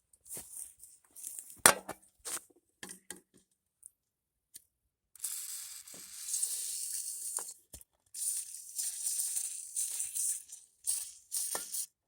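WD-40 aerosol can spraying in two long hissing bursts of about two seconds each. Before them come a few clicks and knocks of handling, the loudest a sharp knock a little under two seconds in.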